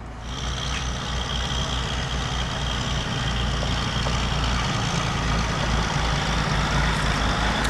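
Heavy diesel engine running steadily: a low, pulsing rumble with a steady high-pitched whine over it.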